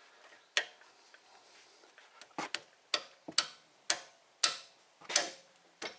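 Ratchet wrench snugging down the brake caliper bolts: about eight sharp metallic clicks, irregularly spaced and coming about every half second in the middle.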